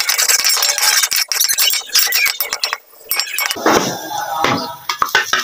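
Clinking and rattling handling noise for about three seconds, then a metal spoon scraping and stirring sliced onions frying in oil in a metal pot, with the sizzle of the oil.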